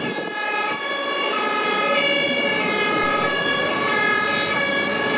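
Airport fire engines' two-tone sirens sounding, switching back and forth between two pitches about every half second to second, marking the water-cannon salute for an arriving aircraft.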